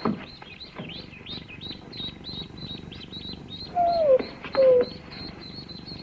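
Newly hatched ducklings peeping, high and quick, several peeps a second without pause. A collie whines twice about four seconds in, each whine falling in pitch.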